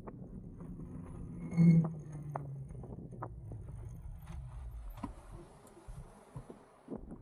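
Riding noise of an Engwe Engine Pro e-bike on the move: low rumble with scattered clicks and rattles, growing quieter near the end. About one and a half seconds in, a short loud pitched blare stands out above it.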